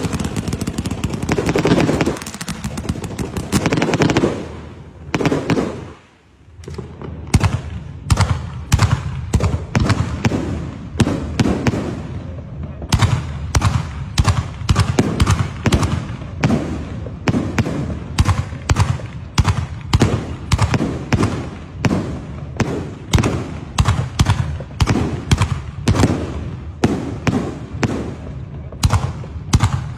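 Fireworks going off: dense bangs and crackle at first, a short drop-off about five to six seconds in, then a long run of rapid sharp cracks, several a second.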